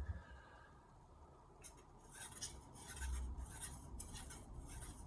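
Carbon-steel santoku's edge rasped in short repeated strokes, about two or three a second, starting a little under two seconds in: the edge is being deliberately blunted before sharpening.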